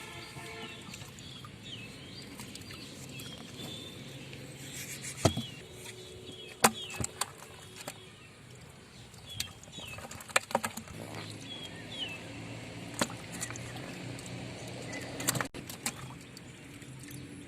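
Scattered sharp knocks and clicks over a low background, with faint short bird chirps.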